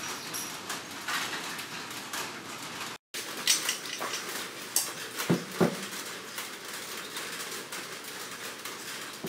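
Metal clinking and clattering as a Hino six-cylinder cylinder head is handled and set down on a steel workbench, with two heavy thuds in quick succession a little over five seconds in as it is lowered onto the table.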